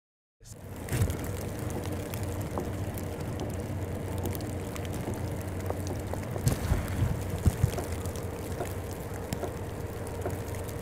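Snowstorm outdoor ambience: a steady rushing noise with a constant low hum beneath it and a few scattered knocks, cutting in abruptly about half a second in.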